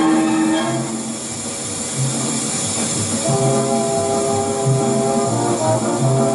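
Background film-score music with a steady low beat; a new set of held notes comes in about three seconds in.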